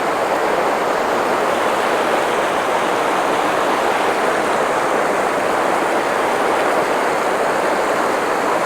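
Shallow stream water rushing steadily, a constant hiss of flowing water with no breaks.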